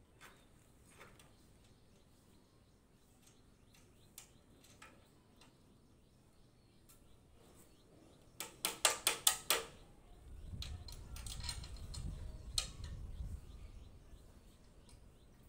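Steel column formwork being unbolted: light metal clicks and taps from loosening the nuts, then a quick run of about seven sharp metal knocks a little past halfway. A low rumble follows.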